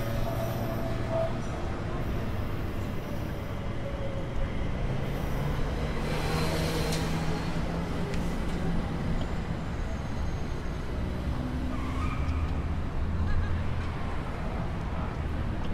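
Steady low rumble of city road traffic, with a vehicle passing about six to seven seconds in. The wheel squeal of a U-Bahn train on the bridge dies away about a second in.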